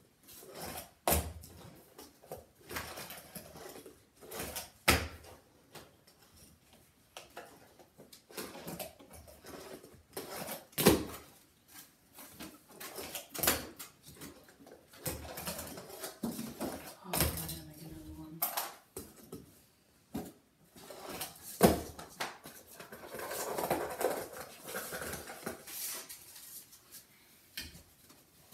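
Fingerboard clattering on cardboard ramps: irregular sharp clicks and knocks as the little board's deck and wheels hit and land on the ramps and table, with light rolling and scraping between. The loudest knocks come about a second in, near five seconds, near eleven, and twice in the last third.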